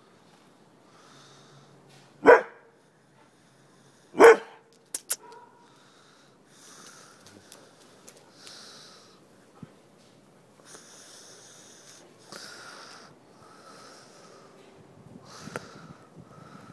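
A dog barks twice, about two and four seconds in, single short barks. It then sniffs and breathes noisily in short repeated bursts close to the microphone.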